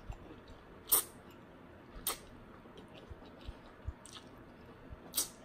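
Close-miked mouth sounds of a person chewing a mouthful of rice noodles in curry broth, with a few sharp clicks, the loudest about a second in, another about two seconds in and one near the end.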